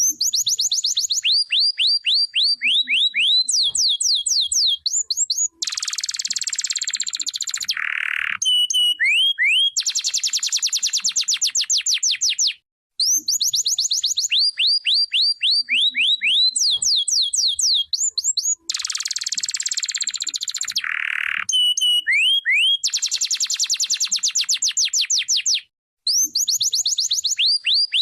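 Canary singing a long song of rapid trills and fast repeated whistled notes, with a harsh buzzing phrase in the middle. The same song comes twice, a brief pause between them.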